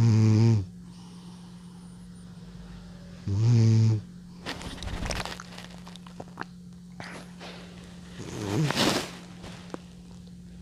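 Old cat snoring in its sleep: three loud, buzzing snores of about half a second each, at the start, about three seconds in and near the end, with scratchier breathing noises in between.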